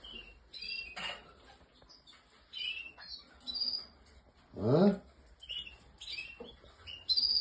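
Several canaries chirping, giving short high call notes at irregular moments rather than a sustained song. A man's brief questioning "A?" comes near the middle.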